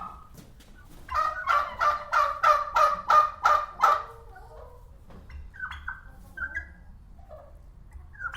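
Turkey gobbling: a fast rattling run of about eight notes lasting some three seconds, followed by softer scattered calls.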